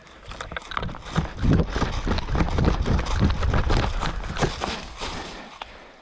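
Running footsteps, heavy thuds about three a second with rustling over them, building about a second in and fading out near the end.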